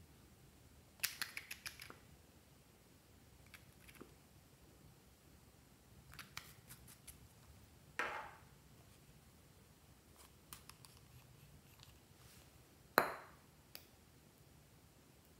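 Faint handling clicks of a small plastic squeeze tube and nail-polish bottle. A quick run of clicks comes about a second in, then a sharper click with a short ring at about eight seconds, and the loudest single click near thirteen seconds.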